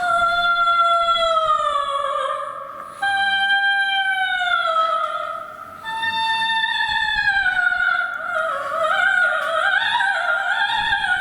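Music: a high, wordless opera-like melody in long held notes that each slide downward, three in a row, then a wavering phrase that climbs near the end.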